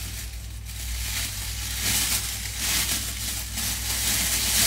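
Clear plastic bag crinkling as it is handled and opened with both hands, in a steady rustle that gets louder about two seconds in and again near the end.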